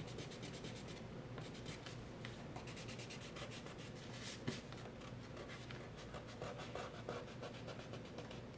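Kneaded eraser rubbing faintly over cold-pressed watercolour paper in quick, repeated short strokes, lifting pencil lines from dry paint.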